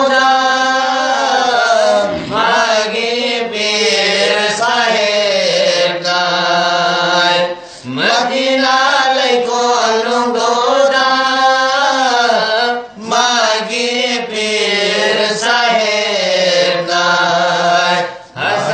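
Men chanting a Manipuri marifat devotional song unaccompanied, in long drawn-out notes with wavering ornaments. They break briefly for breath about eight seconds in, again near thirteen seconds and just before the end.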